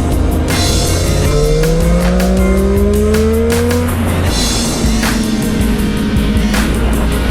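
Motorcycle engine accelerating, its pitch rising for a few seconds and then dropping at an upshift about four seconds in before running steadier. Background music with a steady beat plays over it.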